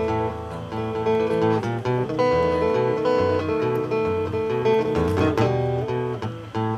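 Two acoustic guitars playing an instrumental tune, strummed chords under picked melody notes, with a hard strum about five seconds in.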